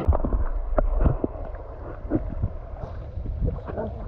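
Radio-controlled car driving through a flooded puddle: water splashing and sloshing over a low rumble of water rushing against the microphone, loudest in the first second, with scattered short splashes and knocks.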